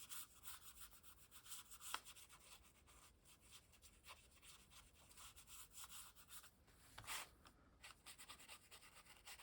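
Faint rubbing and rustling of paper under hands on a table, with a light tap about two seconds in and another about seven seconds in.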